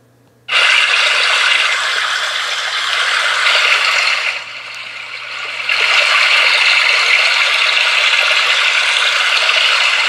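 iPhone's built-in 'Stream' background sound playing through the phone's speaker: a steady rush of flowing water that starts suddenly about half a second in and is quite loud. Its level drops for a second or so a little before the middle, then comes back up.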